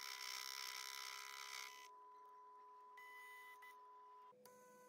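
Proxxon mini lathe spinning a rebar workpiece, a faint steady whine over hiss, which cuts off about two seconds in as the chuck stops.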